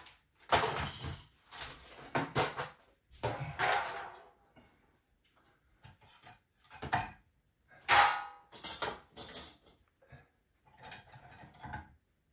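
Small metal objects clinking and rattling as they are rummaged through, in several short bursts with quiet gaps between.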